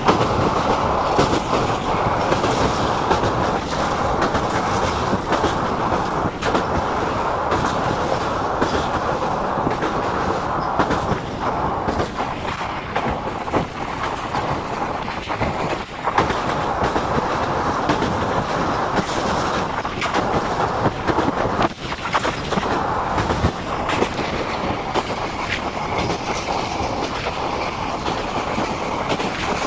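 Train running across a railway bridge, heard from aboard: a steady rumble and rattle of the coaches, with repeated clickety-clack of the wheels over the rails.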